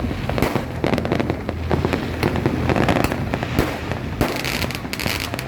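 Fireworks going off: a dense, continuous run of sharp pops and bangs over a low rumble.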